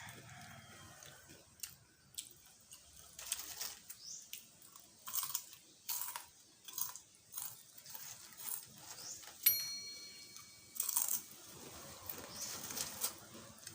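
Crunching and chewing of chips close to the microphone, with a bite about every second. About two-thirds of the way through comes a sharp click with a brief ringing ping.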